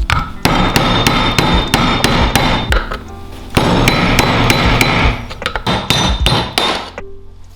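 Rapid repeated hammering: many sharp hand-tool strikes in quick succession, thinning out near the end, with background music underneath.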